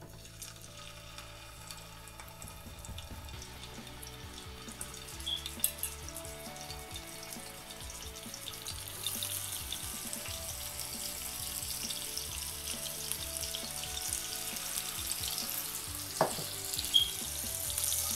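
Marinated red snapper pieces sizzling as they are laid one at a time into hot oil on a flat dosa griddle, shallow-frying. The sizzle grows louder as more pieces go in.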